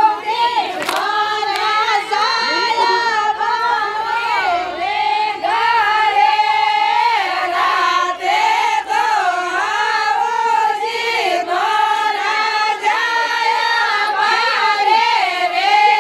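A group of women singing a Marwari Fagan folk song together, one continuous melodic line.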